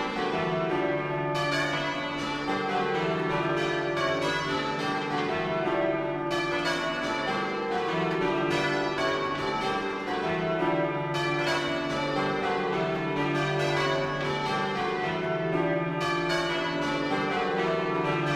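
Church bells ringing at a steady loudness, many strikes following each other closely so that their tones overlap and ring on.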